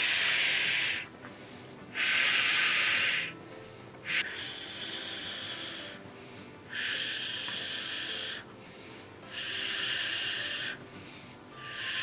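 Long, forceful breaths of air, a hissing rush about every two seconds, five in a row; the first two are the loudest.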